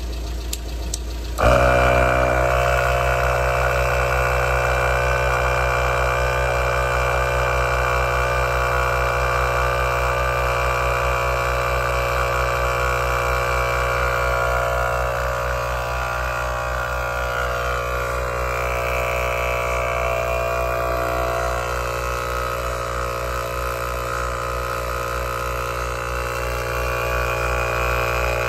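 A 12V portable tyre air compressor (Heyner Big Air 40L) starts after a few clicks about a second and a half in, then runs steadily while inflating a flat van tyre. Under it the van's engine idles, which gives the compressor extra power.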